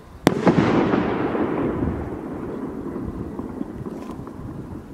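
Star Blaster firework rocket bursting overhead: one sharp bang about a quarter second in, followed by a long tail that fades away over several seconds.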